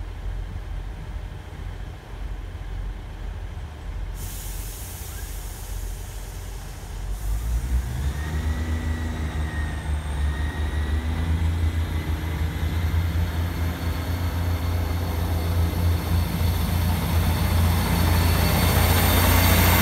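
GWR Class 158 diesel multiple unit idling, then a hiss of air for about three seconds, starting about four seconds in, as the brakes are released. From about eight seconds its diesel engines power up to pull away, with a rising whine, and the sound grows steadily louder as the coaches pass.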